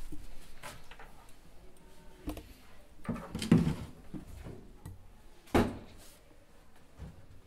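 Plastic cleaning bottles being handled and set down while rummaging in a cupboard under a sink: scattered knocks and clatter, the loudest a cluster about three and a half seconds in and a sharp thump about five and a half seconds in.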